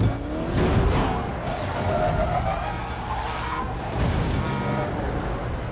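Car-chase sound mix of car engines revving hard at speed over a heavy low rumble. An engine pitch rises over the first second, and a wavering higher whine comes around the middle.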